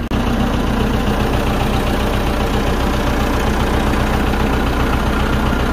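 Farm tractor's diesel engine running steadily, heard up close from the seat, an even low drone.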